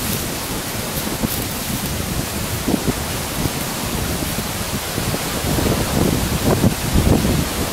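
Wind blowing steadily through the forest, with low rumbling gusts buffeting the microphone that grow stronger near the end.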